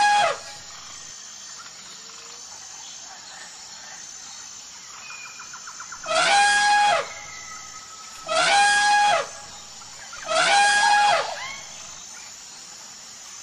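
Elephant trumpeting: three calls of about a second each, roughly two seconds apart, over a steady jungle background with faint bird chirps.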